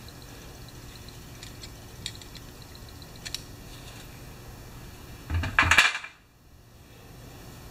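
Light metallic clicks and taps of a small screwdriver working on a chainsaw's Zama carburetor over a metal parts tray, then a short, louder metal clatter about five and a half seconds in.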